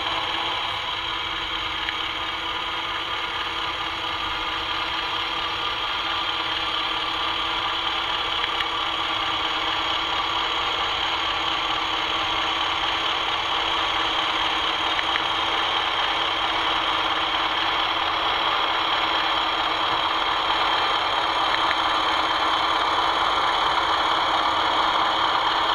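Sound-fitted OO-gauge Class 20 model diesel locomotive playing its diesel engine sound through its onboard speaker as it runs, growing a little louder as it draws closer. The sound never cuts out, showing the track has no dead patches.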